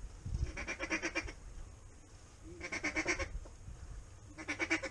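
A duck call blown in short runs of rapid quacks, three runs about two seconds apart, calling to passing waterfowl.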